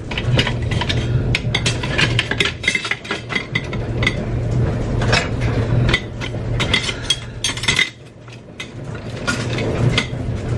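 Knives and other kitchen utensils clinking and clattering as they are handled and set into a crock, many light sharp clinks and knocks. Underneath runs the steady low hum of a running clothes dryer, which drops out for a moment about eight seconds in.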